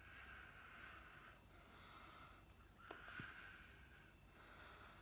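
Faint slow breathing from a person wearing a full-head silicone mask, about four long hissy breaths.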